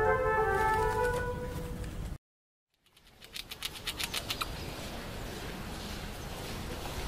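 Soft flute music fading out, then after a brief gap a Eurasian red squirrel gnawing at a nut held in its paws: a quick run of crisp, crackling clicks over a faint outdoor hiss.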